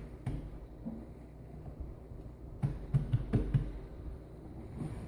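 Handling noises of work with the tank and its materials: a couple of knocks near the start, then a quick run of about five knocks around the middle, over a low steady hum.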